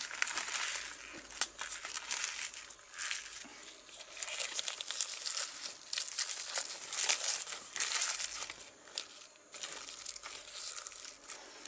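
Fresh banana leaves crumpled, folded and pushed by hand into the open end of a bamboo tube, crinkling and rustling unevenly, with sharp crackles as the leaves are squeezed.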